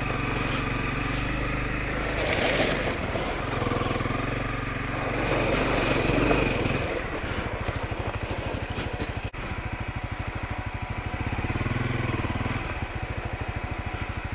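Honda CRF250L's single-cylinder four-stroke engine running at low road speed on a gravel track, with wind and gravel noise swelling at times. From about halfway it settles into an even pulsing beat at lower revs, and a single sharp knock sounds about two-thirds of the way in.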